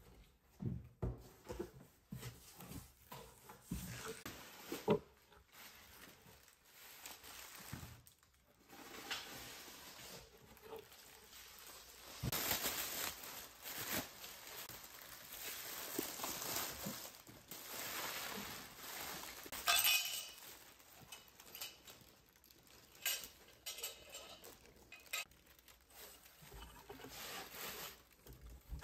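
Hands unpacking a cardboard box: knocks and scrapes of the box and its contents, rustling and crinkling of honeycomb kraft packing paper and tissue paper, and clinks of ceramic dishes being unwrapped.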